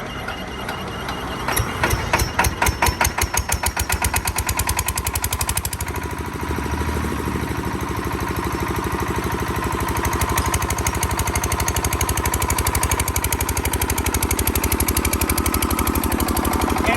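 Hand-crank-start diesel generator engine firing up: separate heavy beats begin about a second and a half in and speed up, then from about six seconds in it settles into a steady, even run.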